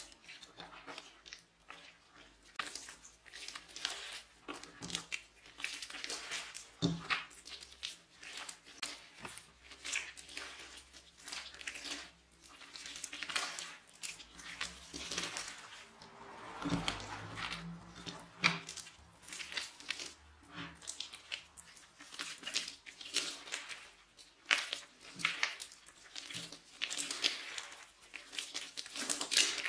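Hands kneading, squeezing and folding a sticky, foamy glitter slime, making a continuous run of short, irregular squishes and pops.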